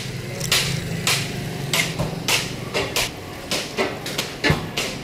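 A series of sharp knocks, irregular at about two a second, over a low steady hum that fades about halfway through.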